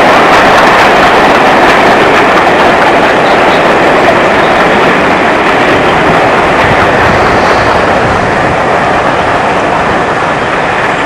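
Steam locomotive working a passenger train, heard as a steady, dense rushing noise with no distinct exhaust beats, slowly fading toward the end as the train draws away.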